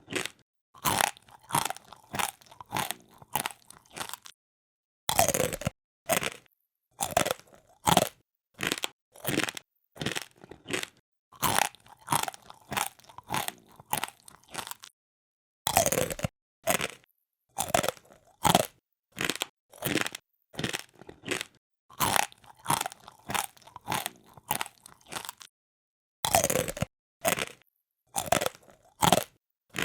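Close-up crunchy chewing: something crisp being bitten and chewed, the 'pori-pori' sound of munching a hard snack. The crunches come about two to three a second in runs of several seconds, with brief pauses between runs.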